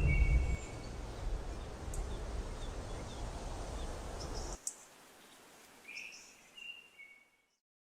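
Steady low ambient rumble that cuts off suddenly about four and a half seconds in, followed by a few faint, short high chirps.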